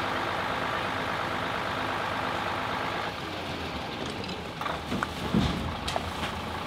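Skip loader truck's engine running steadily while its hydraulic arms handle a steel skip container, with a few knocks in the second half and a heavier thump about five and a half seconds in.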